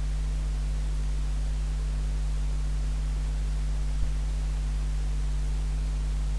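Steady low electrical hum with a faint hiss, and a single short click about four seconds in.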